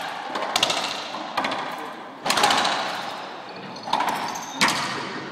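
A racquetball rally: the ball is struck by rackets and cracks off the court walls, five sharp hits in about five seconds, each ringing on in the court's echo.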